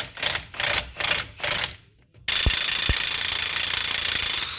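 Cordless impact wrench on a truck's tie rod end nut. It fires in a string of short pulses, about three a second, stops briefly, then runs steadily with a high whine from about two seconds in to spin the nut off.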